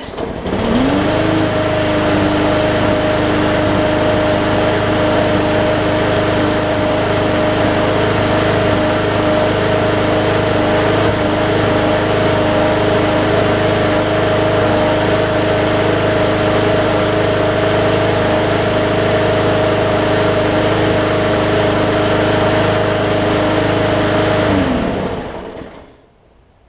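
Briggs & Stratton overhead-valve single-cylinder push-mower engine starting right up and running steadily at speed. It is running on old fuel after water and debris were cleared from its plastic carburetor's jet. About 25 s in it is shut off and winds down to a stop.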